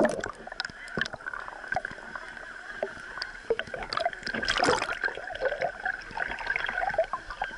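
Water splashing and sloshing, as in a waterfall pool, with a sharp splash at the start, a busier stretch of splashes midway, and a steady high hum behind.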